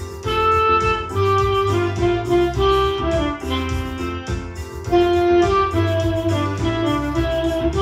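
Yamaha YDS-150 digital saxophone playing a melody over a backing track with a bass line and piano.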